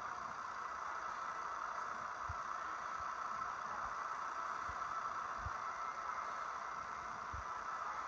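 Steady street traffic noise, a constant hum of vehicles and passers-by, with a few soft low thumps at irregular intervals.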